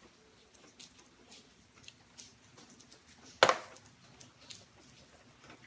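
Faint clicks and handling noises from pressure-notching a stone arrowhead with a metal-tipped tool on a leather lap pad, with one sharp, loud click of tool on stone about three and a half seconds in.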